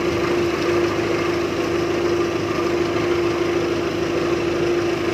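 Small fishing boat's engine running steadily, an even hum with no change in speed.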